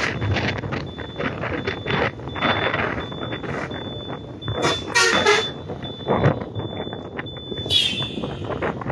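Wind buffeting the microphone of a moving motorcycle over road and engine noise, with short vehicle horn toots about five seconds in and again near the end.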